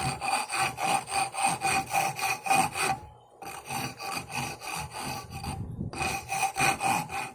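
Rapid back-and-forth hand sanding of a carved wooden knife handle, about four or five scraping strokes a second, with brief breaks about three and six seconds in.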